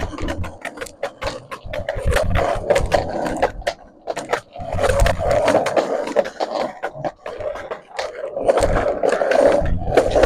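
Skateboard wheels rolling on a concrete sidewalk, a rough rumble with sharp clacks as the wheels cross the joints between slabs, dropping away briefly twice.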